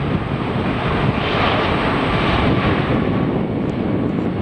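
Boeing 747-400 freighter's jet engines on landing approach: a steady jet noise that swells and brightens about a second in, holds, then eases off toward the end.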